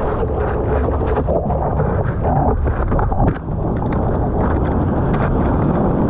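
Water rushing and splashing around a surfboard with wind buffeting the board-mounted action camera's microphone, as a surfer paddles into and drops down a big wave. A loud, rough, steady wash with sharp splash hits throughout.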